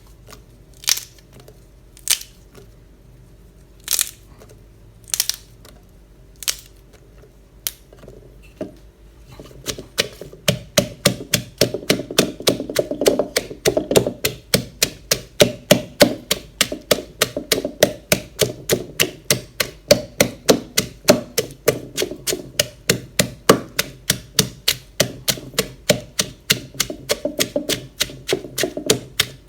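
Pestle pounding in a mortar while making som tam. A handful of separate knocks comes first, then from about ten seconds in a steady pounding at roughly four strikes a second.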